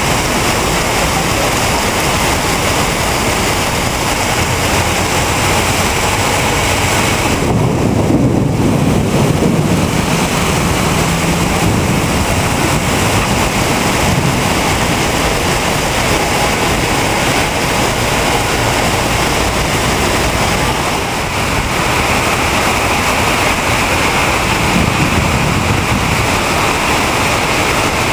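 Storm rainwater pouring off a building in a steady, rushing cascade like a waterfall. About eight seconds in, the sound briefly turns deeper.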